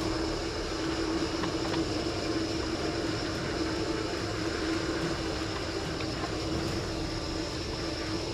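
Mountain bike coasting down a steep road: steady tyre and wind noise with a constant hum, no distinct clicks or knocks.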